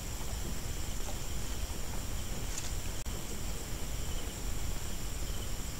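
Night insects, crickets among them, trilling steadily in a high-pitched chorus over a low, steady rumble.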